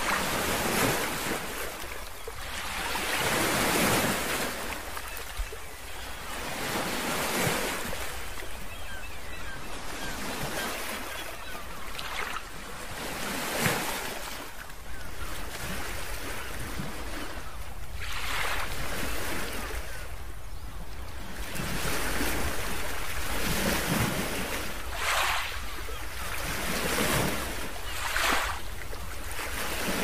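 Ocean surf: waves washing in one after another, each a swelling rush of hiss that comes every few seconds and then fades.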